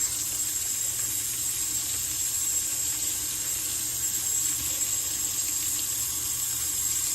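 Water from a tap running steadily into a sink.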